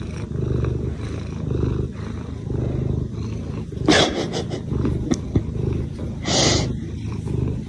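A cat purring loudly close up: a low, pulsing rumble that swells and eases with each breath. Two brief rushy noises break in, about four seconds in and again near six and a half seconds.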